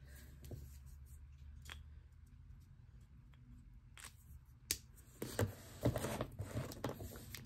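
Plastic alcohol markers being handled while switching colours. A sharp click comes just past halfway, then about two seconds of clicking and clattering as markers are capped, set down and picked up.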